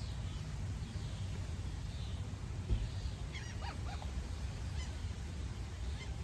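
A bird gives a few short, quick calls about halfway through, over a steady low rumble. There is a single thump just before the calls.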